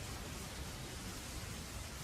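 Steady rainfall, an even hiss with a low rumble beneath it.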